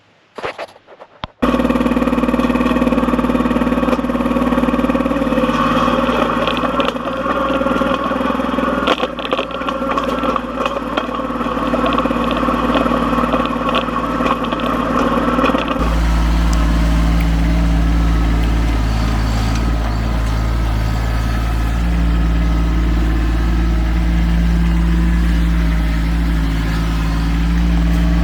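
A Kubota diesel engine starts up and runs steadily. About halfway through, its sound changes to a heavier, deeper rumble.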